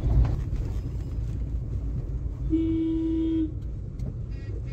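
A vehicle horn sounds one steady note for about a second, midway through, over the low rumble of slow city traffic and the car's engine, heard from inside the car.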